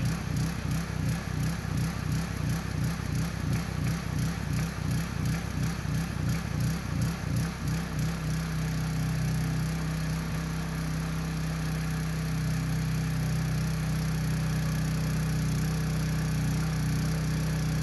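Powerhorse 3-inch trash pump's small single-cylinder gasoline engine running, its note pulsing about twice a second at first, then settling into a steady, even drone about eight seconds in as the pump catches its prime and starts moving water.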